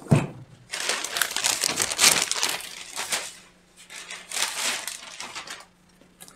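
A thump, then rustling and crinkling as the packaging of a boxed pair of brake discs is handled, in two long stretches.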